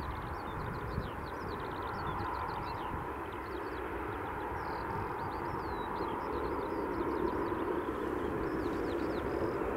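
Steady rumble of distant airliner jet engines that grows a little louder in the second half. Many small birds chirp rapidly above it.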